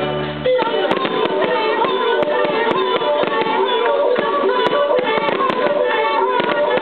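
Aerial fireworks bursting and crackling repeatedly, with many sharp pops, over loud, continuous music.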